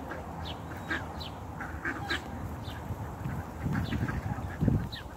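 A flock of ducks quacking and calling, with many short high chirping calls throughout. A low thump stands out about four and a half seconds in.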